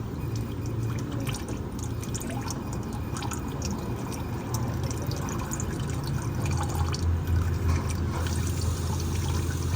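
Engine oil pouring and dripping, a steady trickle with many small drips, over a low steady hum that gets louder about seven seconds in.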